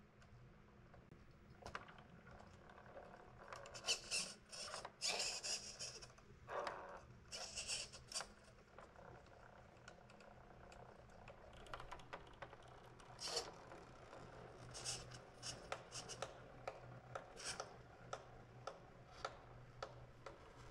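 Redcat Ascent RC rock crawler creeping over rocks: irregular scrapes, clicks and knocks of tyres and chassis on stone, with a cluster of louder scraping in the first half, over a faint steady hum.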